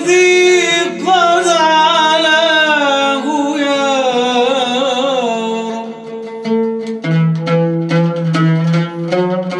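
An Arabic devotional nasheed: a male voice holds a long, wavering melismatic note over plucked-string accompaniment. About six seconds in the held line ends and a run of quick plucked string notes takes over.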